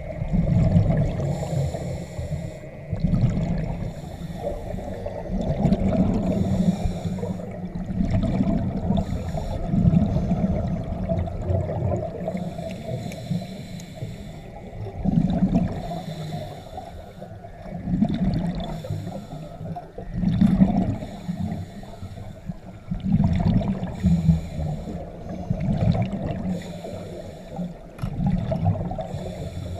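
Scuba diver breathing through a regulator underwater: bursts of exhaled bubbles rumble and gurgle about every two to three seconds.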